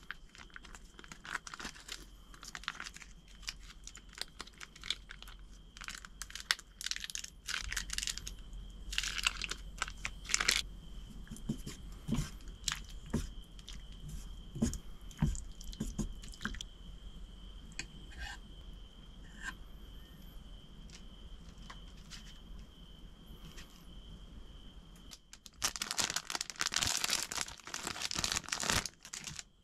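Plastic food sachets crinkling and being torn open, with chopsticks knocking against a metal pot as noodles are stirred in the middle. Near the end comes a longer, denser stretch of crinkling and tearing as a plastic food pack is opened. A faint steady high whine runs underneath.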